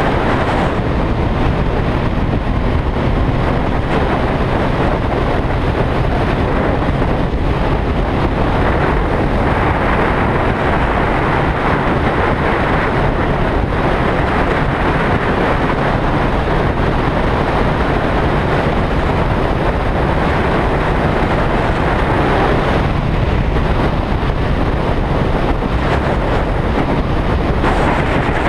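Wind rushing over the microphone of a sportbike cruising at steady highway speed, with the motorcycle engine running underneath at an even pitch.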